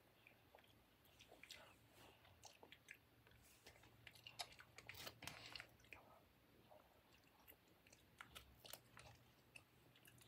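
Faint chewing with small clicks and crackles of a snack wrapper being handled, over a low steady hum.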